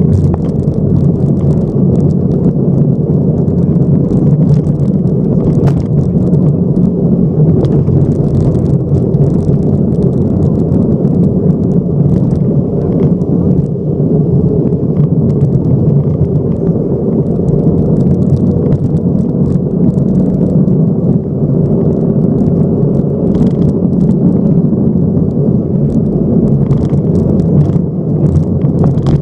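Subaru rally car's flat-four engine running hard at speed on a gravel stage, heard from inside the cabin, with tyre roar and frequent sharp ticks and clatter of gravel thrown against the car.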